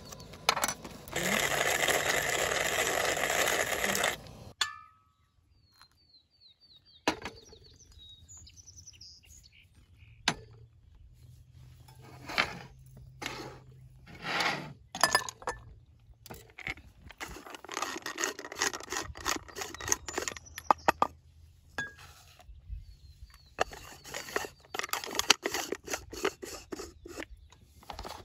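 Hand-made coffee gear being handled. First a few seconds of coffee beans rattling as they pour into a metal hand grinder. Then scattered clinks and knocks of a glass of ice and other gear set down on a metal camp table, with two longer stretches of gritty rattling and scraping later on.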